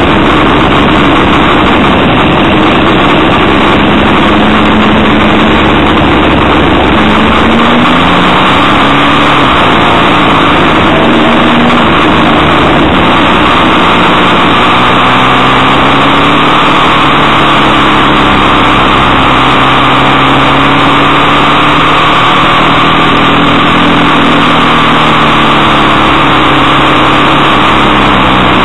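Motorcycle ridden at road speed, heard onboard: a loud, steady rush of wind noise over the microphone with the engine note underneath, its pitch rising and falling as the throttle opens and closes through the bends.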